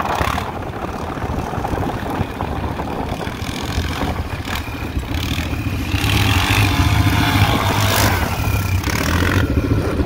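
ATV engine running steadily while riding, getting louder about six seconds in.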